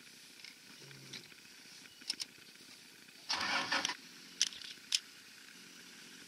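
Game-drive vehicle's engine: a faint low hum, then a short loud burst of engine noise about three seconds in, with a few sharp clicks around it.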